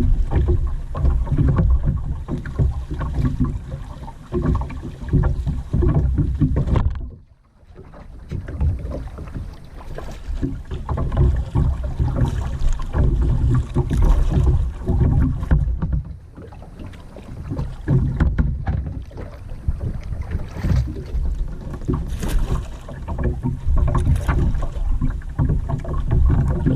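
Wind buffeting the microphone with a low, gusty rumble, over water splashing and sloshing around a kayak being paddled. About seven seconds in, the sound drops away almost to silence for a moment, then resumes.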